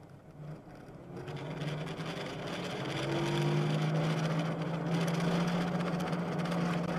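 Car driving, heard from inside the cabin: a steady low engine hum with tyre and road noise that grows louder over the first few seconds as the car gets moving.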